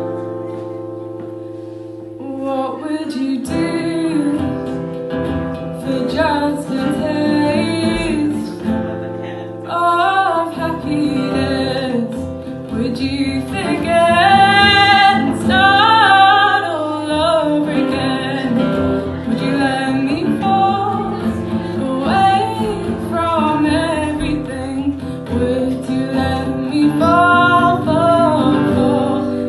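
A woman singing with her own acoustic guitar accompaniment. A guitar chord rings alone at first, and her voice comes in about two seconds in.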